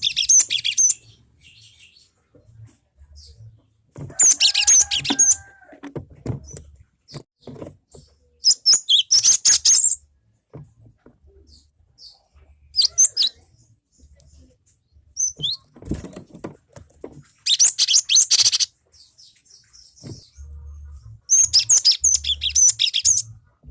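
Cinereous tit (gelatik batu) calling in about six separate bursts of rapid, high chirps, each around a second long, with pauses of a few seconds between them.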